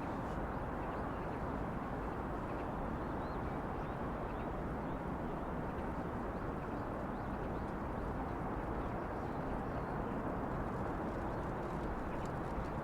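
Steady outdoor city noise, an even wash of distant traffic, with faint short high chirps scattered through it.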